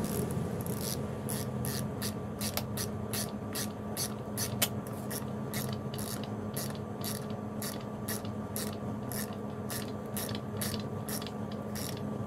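Hand ratchet wrench clicking in quick, regular strokes, about three clicks a second, as it cranks down a pulley-installer screw to press the drive pulley onto a power steering pump shaft. A steady low hum runs underneath.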